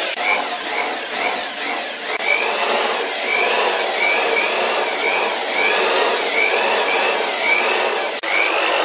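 Freshly restored electric hammer drill running free with its SDS bit spinning, a steady motor noise with a whine that rises and falls in pitch over and over. The motor, rebuilt with reshaped brushes and a polished commutator, is running again after repair.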